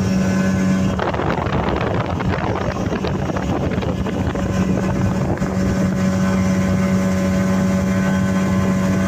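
Motorboat engine running at a steady, even pitch, with wind noise on the microphone.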